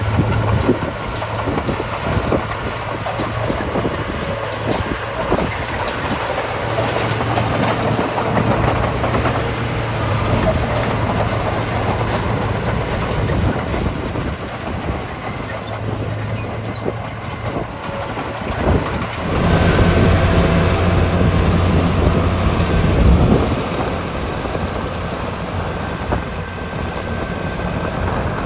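Komatsu D41P bulldozer's diesel engine running under load, with rapid clanking and rattling. About two-thirds of the way through the sound changes abruptly to a louder, steadier engine note.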